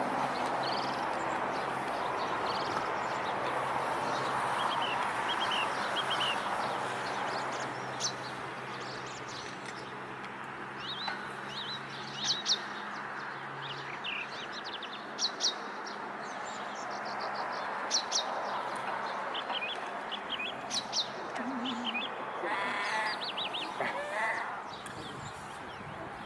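Australasian crested grebe (pūteketeke) giving a harsh, growly squawk near the end, a bird spooked. Around it, Eurasian coots give repeated sharp clanking calls and small birds chirp over a steady background hiss.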